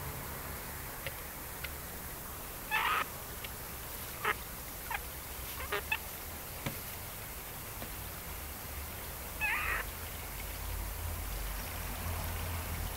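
Pekin bantam chickens calling: two short squawks about seven seconds apart, with a few quick clucks between them, over a steady low rumble.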